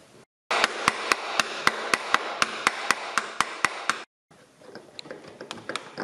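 Plastic mallet tapping repeatedly on a crankshaft pulley to knock it loose from the crankshaft, about four even blows a second for some three seconds. After a short break come lighter, scattered clicks and knocks.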